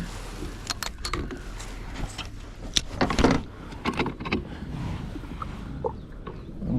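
Irregular knocks, scrapes and sharp clicks of fishing gear and a landed fish being handled on a kayak, busiest around the middle.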